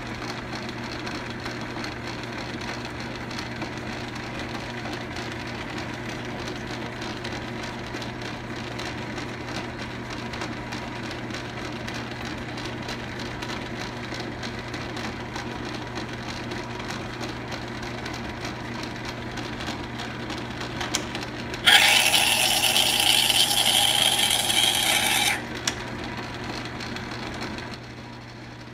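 Logan 10-inch metal lathe running while a boring bar cuts an internal Acme thread in a brass sleeve, a steady hum under a scraping cutting noise. About three-quarters of the way through, a loud, harsh, high-pitched squeal lasts about four seconds. The sound drops off just before the end.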